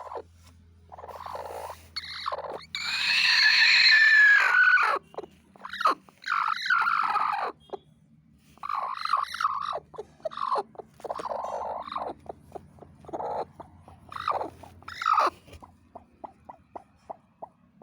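Broody hen defending her nest as it is touched, giving a string of harsh, loud, pitched calls, the longest one held for about two seconds and falling in pitch at its end, followed by shorter calls and then a run of short clicks near the end.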